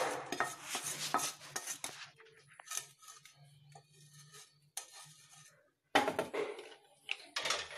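Wooden spatula scraping and clicking roasted spices out of a frying pan onto a steel plate. A quick run of scrapes comes first, then sparser ones, with a last burst of scraping about six seconds in.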